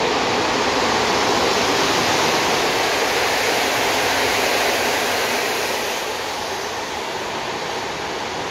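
InterCity passenger coaches hauled by an EP07 electric locomotive running through the station at speed: a steady rush of wheels on rail that eases off over the last couple of seconds as the train moves away.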